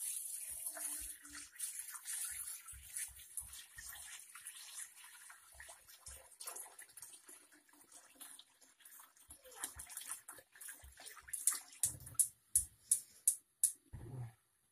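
Water pouring from a jug into a large metal pot of raw chicken pieces, a steady splashing fill that fades out about ten seconds in. Near the end, a quick run of sharp clicks, with a couple of low knocks.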